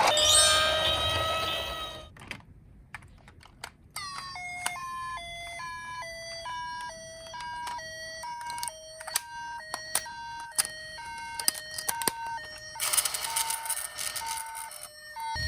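Toy emergency-vehicle minicar's electronic siren. A wailing tone fades out in the first two seconds, and after a short gap with a few clicks a two-tone hi-lo siren alternates quickly between a low and a high pitch over plastic clicking. Near the end it switches to a harsher, noisier siren sound.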